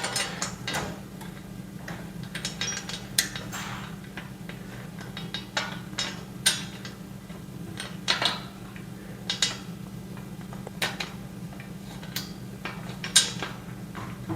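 Irregular light metallic clinks and taps of screws and steel shelf parts being handled as screws are driven in by hand with a screwdriver.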